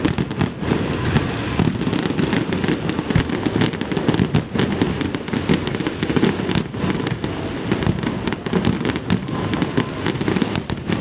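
Fireworks going off in a dense, continuous barrage of rapid pops and crackles.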